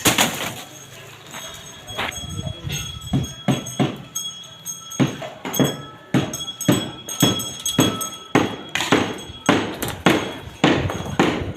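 Repeated sharp metallic clanks and knocks on a building site, each with a brief ringing. They come irregularly at first, then settle to about two a second in the second half.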